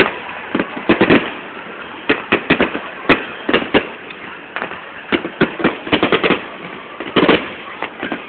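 Fireworks display: many sharp bangs and crackles going off in quick, irregular volleys.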